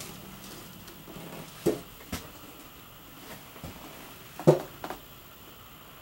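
A few short knocks and bumps: two about a second and a half to two seconds in, then the loudest about four and a half seconds in, with a smaller one just after.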